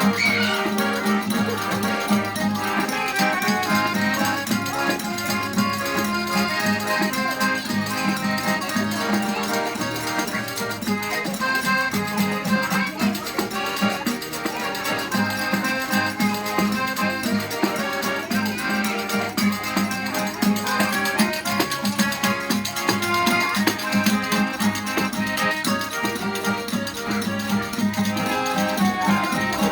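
Gaúcho accordion (gaita) playing a lively vaneirão dance tune, bellows pushed hard.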